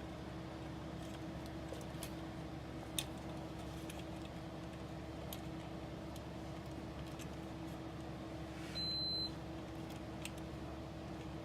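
Light clicks and taps of small parts being handled while fitting an anti-wrap bar mount to a scale RC truck's leaf-spring axle, with one sharper click about three seconds in, over a steady electrical hum. A short high beep sounds about nine seconds in.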